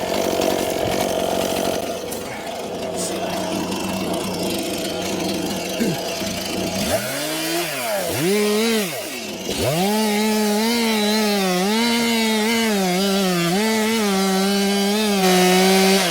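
Two-stroke chainsaw running, then revved up about seven seconds in. After a brief dip it holds at high revs, wavering slightly under load as it cuts into a dead spruce, and drops back off at the end.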